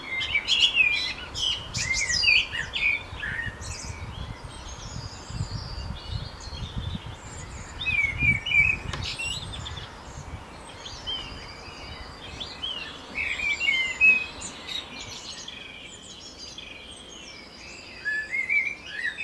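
Several small songbirds chirping and singing in short, varied phrases, with a low rumble underneath in the middle.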